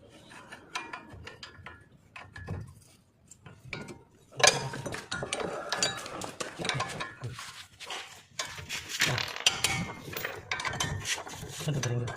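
Metal clicking and clattering: a few faint clicks at first, then from about four seconds in a dense run of rapid metallic clicks and knocks.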